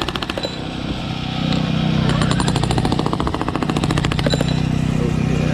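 Jackhammer pounding in rapid, even strikes, in two runs, over the steady drone of a portable generator that grows louder about a second and a half in.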